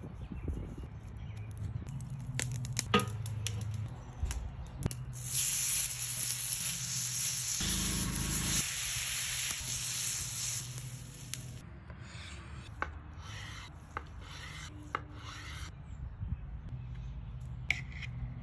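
Ahi tuna steaks searing on a hot flat-top griddle: a loud sizzle starts about five seconds in and cuts off sharply about six seconds later, followed by several short hissing bursts. Before the sizzle there are scattered light ticks and taps.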